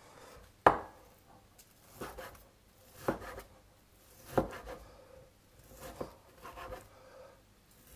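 Chinese cleaver chopping chicken breast into cubes on a wooden cutting board: about six sharp knocks of the blade on the board, a second or so apart, the first the loudest.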